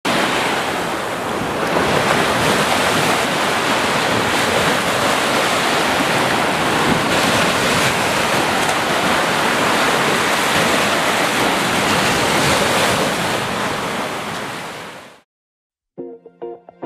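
Ocean surf washing onto a sandy beach with wind, a steady rush of noise that fades out near the end. After a moment of silence, music comes in with held tones just before the end.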